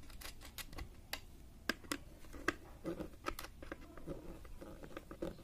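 Scattered light clicks and taps at irregular spacing from a small screwdriver and a wire end working a switch's brass terminal screw, as a wire is fastened into the terminal of a switch board.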